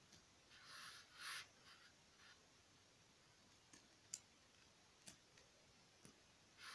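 Faint rustling of a doll's cloth nightgown being pulled and bunched by hand, loudest about a second in, followed by a few faint clicks.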